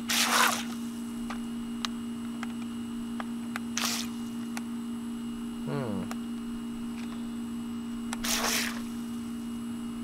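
Small remote-control toy jet ski (Syma) running in short spurts: three brief splashing, hissing bursts of its water jet, over a steady low hum. It runs only intermittently, a fault the owner complains of.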